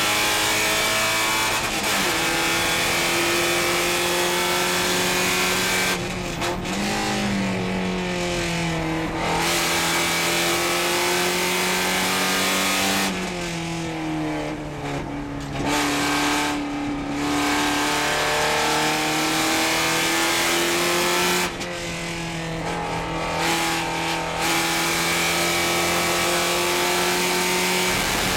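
Porsche 944 Spec race car's four-cylinder engine at racing speed, heard from inside the cockpit. Three times the driver lifts off for a corner and the engine note drops, then it climbs again under throttle.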